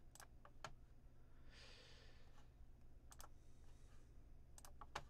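Near silence with a few faint, scattered clicks of a computer mouse and keyboard and a soft breath about two seconds in, over a low steady hum.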